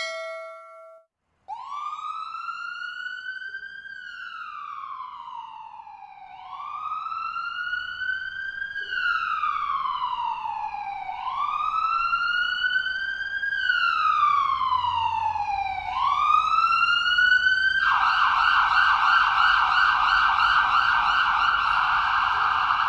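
Ambulance electronic siren in its slow wail, each cycle rising quickly and falling slowly about every five seconds, growing louder. About 18 seconds in it switches to a rapid yelp. A short steady tone sounds in the first second before the siren starts.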